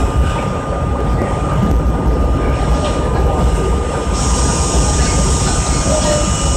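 R32 subway car running on an elevated line: a steady, loud rumble of wheels and traction motors with a constant whine. A higher hiss joins about four seconds in.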